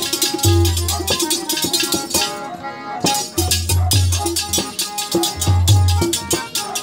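Live Punjabi folk music: fast, rhythmic metallic jingling over a repeating deep drum beat, with a harmonium holding tones underneath. The jingling stops for about half a second midway, then comes back.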